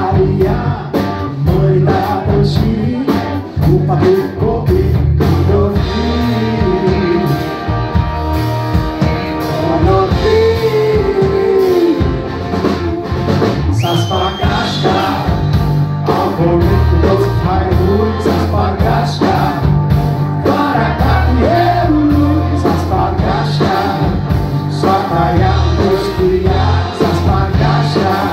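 Live rock band playing: a male lead singer over electric guitar, bass guitar and drums.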